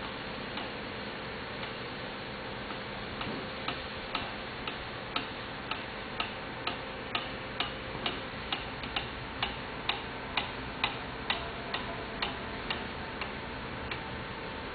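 Sharp, evenly spaced clicks, about two a second, starting a few seconds in and stopping near the end, over a steady hiss with a faint hum.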